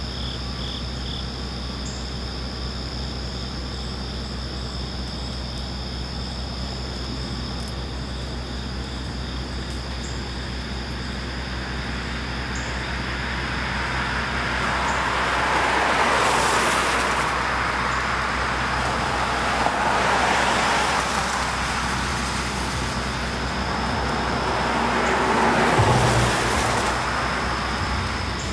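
Cars driving past on a wet road, the hiss of their tyres on the wet pavement swelling and fading three times in the second half.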